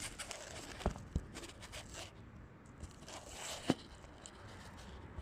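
Rustling and scraping, with sharp knocks about a second in, again shortly after, and a louder one near four seconds in.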